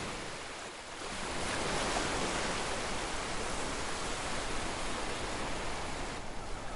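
Steady rushing wash of sea surf, building about a second in.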